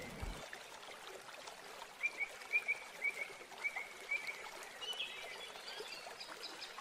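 Faint animal chirping over a light steady hiss: short high chirps repeat about twice a second, then higher, quicker chirps near the end.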